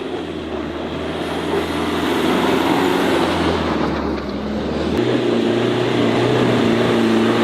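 Tata Harrier's diesel engine labouring as the SUV drives through sand, growing louder, with the engine note jumping higher about five seconds in as the revs rise.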